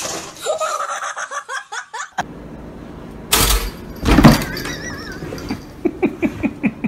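People laughing, ending in a quick run of short "ha-ha" pulses, with two loud clattering crashes about three and four seconds in.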